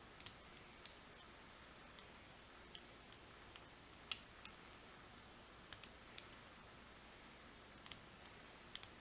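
Faint, sharp metallic clicks, about fifteen irregularly spaced over several seconds, from a hook pick working the pins of a Brinks pin-tumbler lock with a Kwikset keyway under tension. They come from single-pin picking while the picker tries to set the last pin from a false set.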